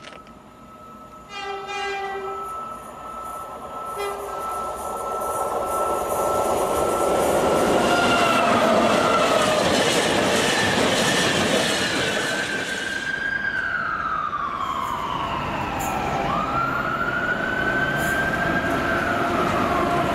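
A horn sounds one short note about a second in and a brief second one near four seconds, on the approach of a Class 90 electric locomotive hauling a Freightliner container train. Then a long string of container flat wagons rolls past, wheels rumbling and clacking over the rail joints, with squeals from the wheels gliding up and down in pitch through the second half.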